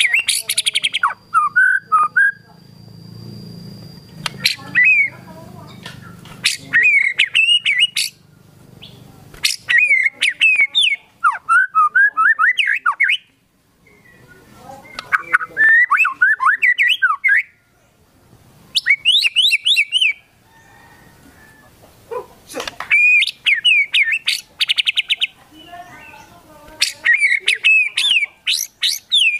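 White-rumped shama (murai batu) in full song. It delivers loud bouts of varied whistles, quick rising and falling notes and fast rapid-fire trills, each bout a second or a few seconds long, broken by short pauses.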